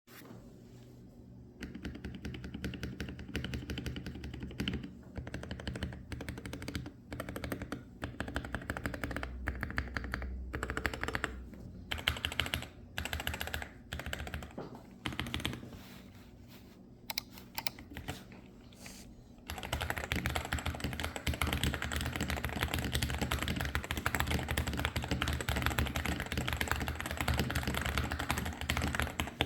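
Typing on a modded Wooting 60HE keyboard with Hall-effect magnetic switches. The keystrokes start about a second and a half in, come in bursts with short pauses, then turn into continuous fast typing about two-thirds of the way through.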